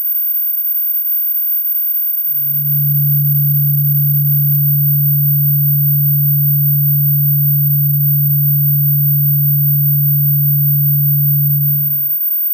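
Electronically generated dog-deterrent tone: a very high, thin, steady whine that does not change. From about two seconds in until just before the end, a louder, low, steady hum-like tone sounds under it.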